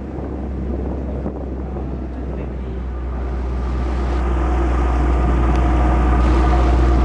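Ferry's engine running with a steady low rumble under water churning in its wake, with wind buffeting the microphone. The rumble and rush get louder about halfway through.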